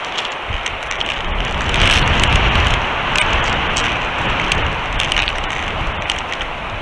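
Strong wind buffeting the nest-cam microphone in high winds: a steady rushing noise with gusty low rumbles and scattered sharp ticks.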